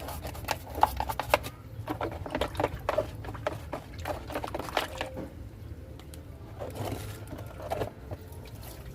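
Washing machine parts being washed by hand with water: splashing and pouring with irregular knocks and clatter, busiest in the first few seconds, over a low steady hum.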